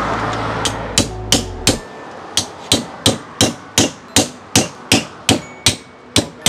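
Hammer striking the back of a machete again and again, about three blows a second, driving the blade through an amberjack to cut it into steaks.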